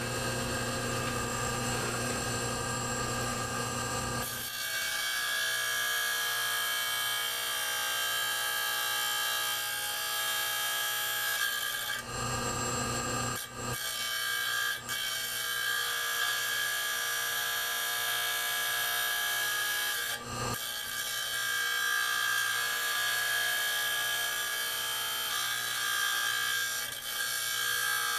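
A labradorite slab is being trimmed on a running lapidary machine. At first only the motor hums. From about four seconds in, the stone is fed into the cutting edge and a steady, high grinding whine sets in, breaking off briefly twice when the pressure is eased.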